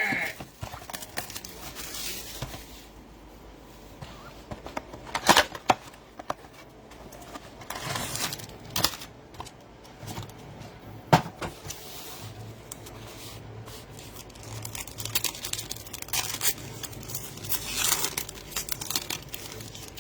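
A blaster box of trading cards being opened: cardboard handled and the packs' wrappers crinkling and tearing open, in scattered rustles with a few sharp clicks.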